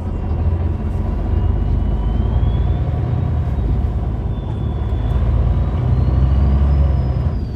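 MAN A20 bus's MAN D2866LUH24 six-cylinder diesel running through its ZF automatic gearbox, heard from inside the bus: a heavy low engine rumble that grows louder from about a second in and eases off near the end, with a thin high whine that dips and then rises in pitch.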